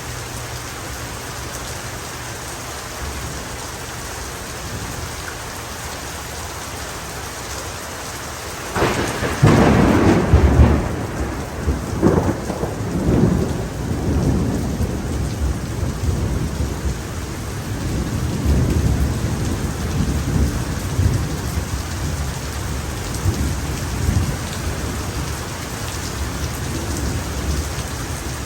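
Steady heavy rain. About nine seconds in, a thunderclap breaks suddenly, loudest at first, then rolls on in low rumbles that slowly ease off through the rest.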